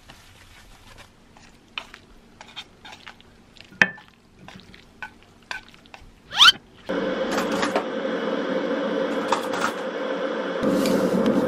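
Chopsticks clicking and tapping against a nonstick frying pan as spaghetti is tossed, then a loud scrape as the pasta slides from the pan onto a ceramic plate. About seven seconds in, a steady loud hum with a rushing noise starts abruptly and continues, with a few crinkles of foil soup packets.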